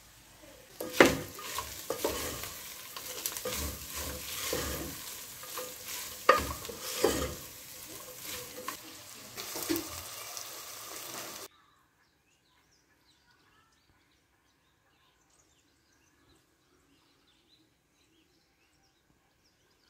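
Meat frying in an aluminium pot as it is stirred: steady sizzling with scraping and sharp clinks against the pot. It cuts off suddenly about eleven seconds in, leaving only faint bird chirps.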